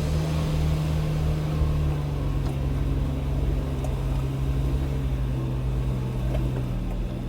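Suzuki Jimny's engine running steadily under way, with a low rumble and a few light knocks; its pitch eases slightly lower near the end.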